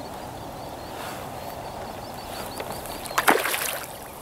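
A sharp splash about three seconds in as a hooked rainbow trout thrashes at the surface, over a steady hiss of wind and water.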